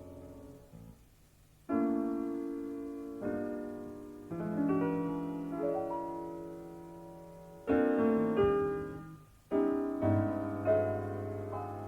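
Jazz piano played slowly and freely: a series of full chords struck one after another and left to ring and fade, with a low sustained note joining in near the end. Heard from an off-air cassette recording of an FM broadcast.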